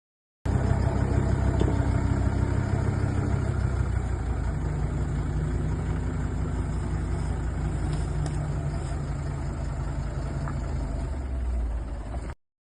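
Engine of a heavy forestry machine running steadily, with a few faint clicks. It starts abruptly about half a second in and cuts off suddenly near the end.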